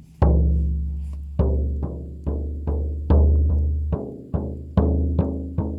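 A frame drum (buben) struck in a steady ritual beat, about two to three strikes a second, each one a deep booming tone that rings and fades. The drumhead is a little damp, by the player's own remark.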